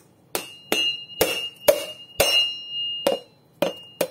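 Chinese cleaver striking a whole coconut to crack the hard shell open: about eight sharp strikes, roughly every half second, each leaving a high metallic ring from the blade.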